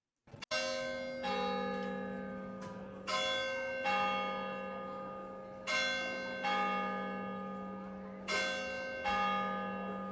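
Two bells of different pitch struck alternately, in pairs about every two and a half seconds, eight strikes in all, each ringing on and overlapping the next.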